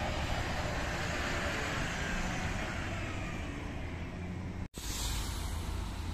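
City bus driving past with its engine running and tyre and road noise, swelling in the first couple of seconds as it goes by. The sound cuts out abruptly about four and a half seconds in, then resumes with another bus's engine as it pulls round.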